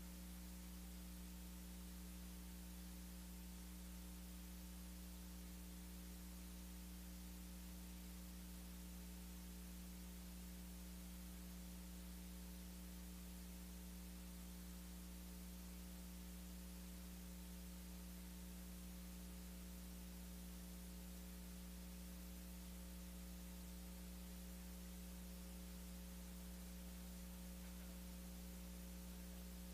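Faint, steady electrical hum and hiss: a low drone with several fixed higher tones above it, unchanging throughout.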